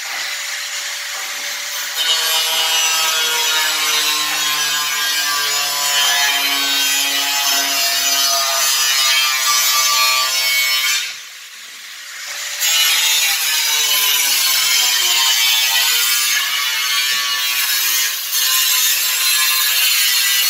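Electric power tool running under load with a steady, loud whirring hiss. It cuts out about eleven seconds in, starts again a second or so later, and dips briefly near the end.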